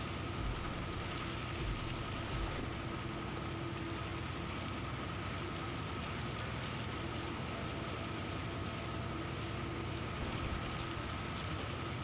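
An engine running steadily, a constant drone with a held hum.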